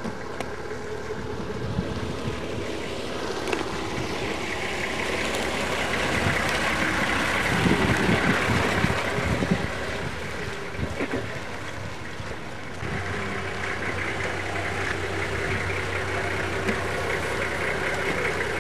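Toyota Land Cruiser SUV driving past on a dirt road, its engine and tyres growing louder as it comes close and easing off as it moves away. Near the end the engine hum turns steady, the vehicle idling while stopped.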